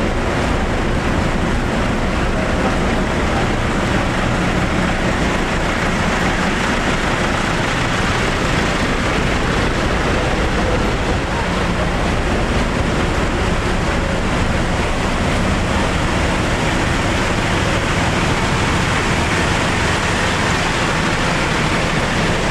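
Steady roar of tour bus engines and road traffic, without any telolet horn melody.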